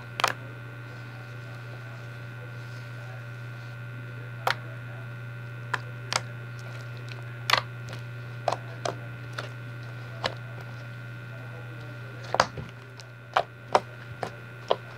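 Hands kneading and pressing foamy glittery slime, making irregular sharp clicks and pops, about a dozen in all and a few close together near the end. A steady electrical hum runs underneath.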